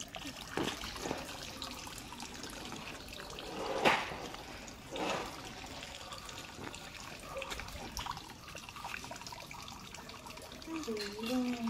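Water trickling and splashing as a small tin can on a rope is dipped into a shallow water-filled pit and hauled back up, with two short louder splashes about four and five seconds in.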